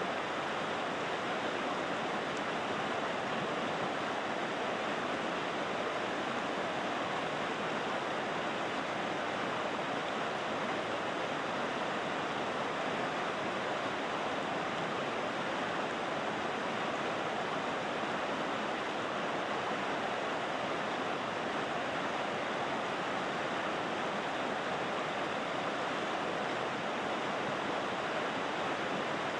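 River water rushing, a steady even noise with no single splashes standing out, close to white noise.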